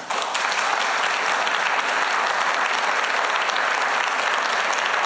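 Large audience applauding: many hands clapping in a steady, even stream.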